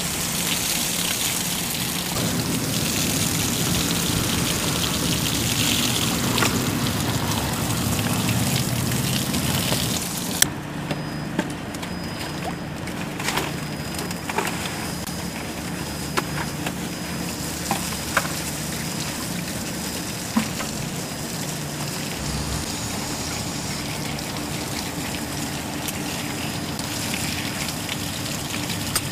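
Water spraying from a garden-hose nozzle onto mud on a wire-mesh sieving screen, a steady hiss. About ten seconds in it drops away abruptly to a quieter hiss with scattered light knocks and clicks.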